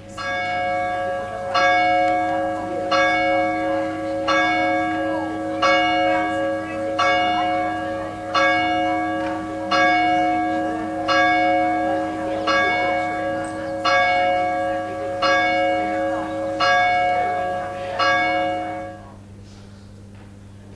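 A single church bell tolling steadily, one stroke about every second and a half, each stroke ringing on into the next. The tolling stops shortly before the end.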